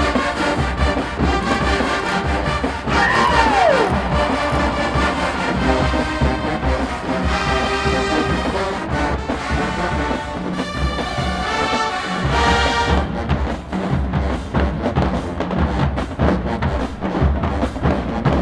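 A college marching band playing, with full brass over heavy drums and a sliding fall in pitch about three seconds in.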